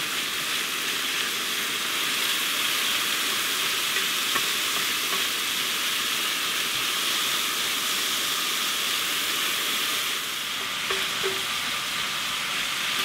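Thinly sliced sirloin steak sizzling steadily in its fat on a hot flat-top griddle while it is stirred with wooden tongs.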